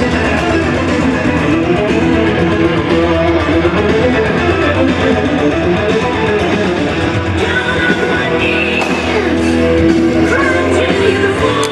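Guitar-driven music playing steadily as a wrestler's entrance theme.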